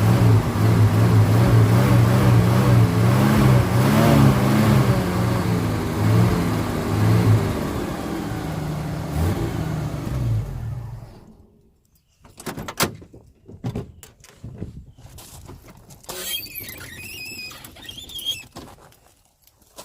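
1977 Chevy Nova's engine running with its pitch rising and falling as it is revved lightly, then switched off about eleven seconds in. After it stops come a few clicks and knocks and a brief squeak.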